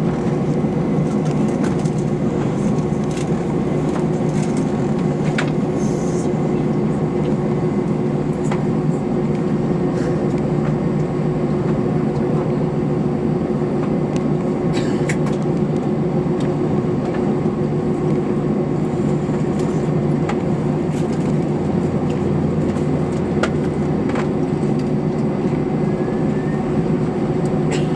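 Steady drone of a parked Airbus A321-231, its auxiliary power or air-conditioning running with a fixed hum, with a few faint clicks and knocks scattered through it.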